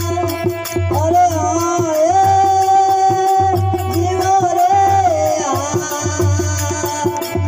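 Rajasthani folk devotional bhajan music: a drawn-out melody with held and gliding notes over a steady drone, driven by a continuous hand-drum and rattle beat.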